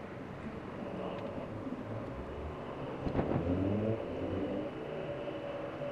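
Sped-up harbour ambience: engine and traffic rumble with shifting hums. A sudden louder burst comes about three seconds in.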